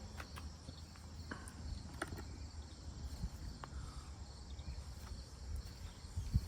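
Quiet workshop background: a steady low hum and a steady high-pitched insect-like chirring, with a few faint clicks and knocks of tools being handled.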